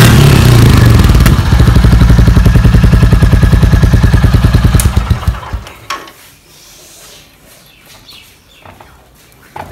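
Royal Enfield single-cylinder motorcycle engine running loud through its exhaust. It runs dense and steady at first, then settles into a fast, even thumping beat and stops about five seconds in.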